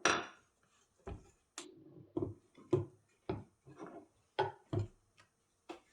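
A string of short knocks and taps, about two a second, on the Winchester 44-40's forend end cap as it is worked at, which is rusted on and will not come free.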